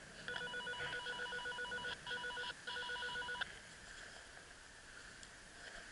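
Electronic ringing tone from a handheld device, a fast-pulsing beep that sounds in three bursts and cuts off abruptly after about three seconds.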